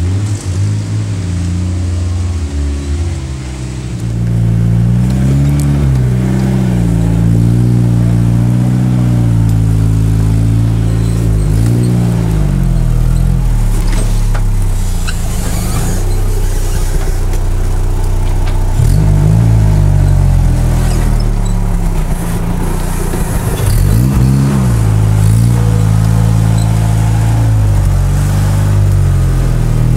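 Engine of a lifted off-road 4x4 revving up and down under load as it crawls over rough trail, getting louder about four seconds in, with a few sharp knocks near the middle.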